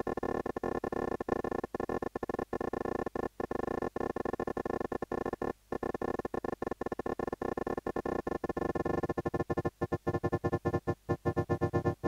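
Synth tones run fully wet through a Mutable Instruments Clouds granular processor: a dense chord texture broken by many brief dropouts. From about nine seconds in it turns into a faster, more regular choppy pulsing, and a deeper low note comes in.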